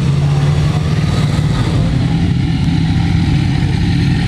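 BMW S1000RR's inline-four engine idling steadily close by.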